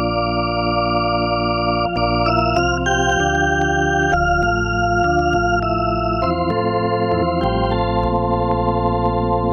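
Roland VR-09 keyboard playing a Hammond-style organ sound: sustained chords that change every second or two, with short clicks at the start of the new chords.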